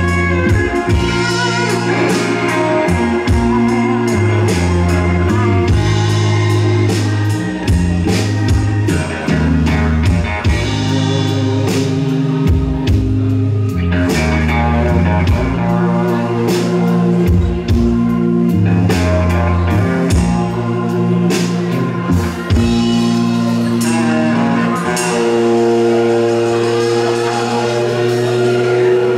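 Live rock band playing: electric guitar, bass, drum kit and keyboard. Near the end the drums drop away and long held chords ring on.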